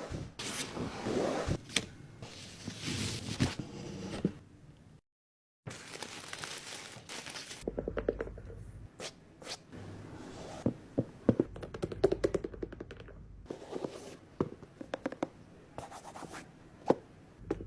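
Hands handling and opening product packaging: scraping and rustling of card and paper, broken by light taps, clicks and thunks.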